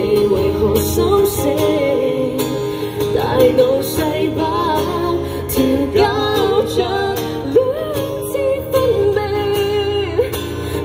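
Live song: a singer carrying a melody over strummed acoustic guitar.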